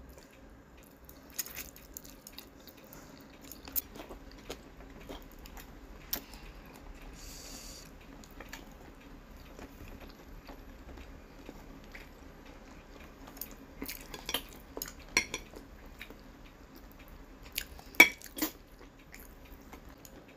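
Plastic chopsticks tapping and scraping on a ceramic plate, with scattered clinks, the sharpest about 18 seconds in, alongside chewing and noodle slurping while eating.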